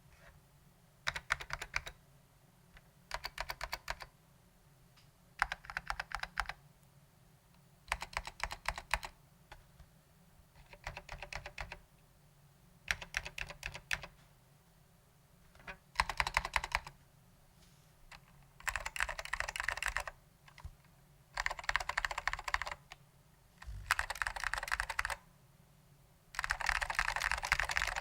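Typing on an Apple Standard Keyboard M0116J with lubed Alps SKCM Orange switches: bursts of rapid keystrokes about a second long, separated by pauses of about a second. In the second half the bursts grow longer and denser.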